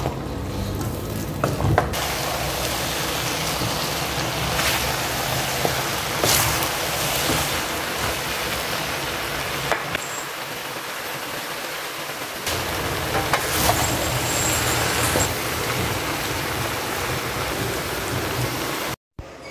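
Pancit noodles sizzling as they stir-fry in a wok, with a few sharp taps and scrapes of a wooden spoon against the pan. The sizzle is steady and cuts off abruptly near the end.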